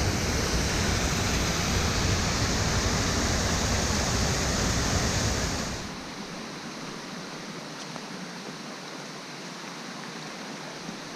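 Water rushing steadily over a small stone weir on a beck. A little over halfway through it drops abruptly quieter and thinner, losing its deep rumble.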